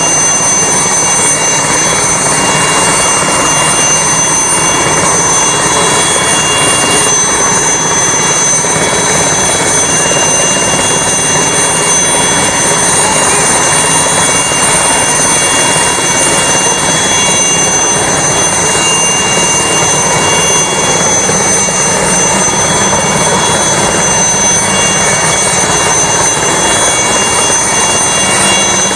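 Alouette III helicopter on the ground with its turbine engine running and rotors turning. A loud, steady rushing noise with several high, steady whining tones held throughout.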